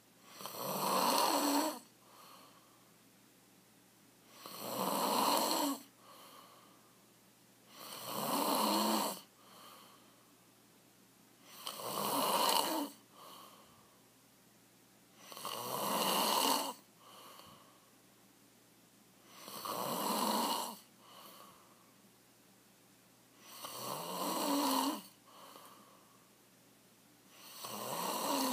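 A man snoring loudly in his sleep: eight long snores, about one every four seconds, each building up and then cutting off, with a short, fainter breath after each.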